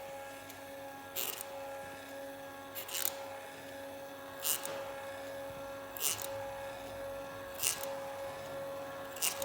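Somfy roller-blind tube motor running with a steady whine, and a short scratching creak about every one and a half seconds, six times in all, in step with the turning roller: a sticker left inside the blind rubbing.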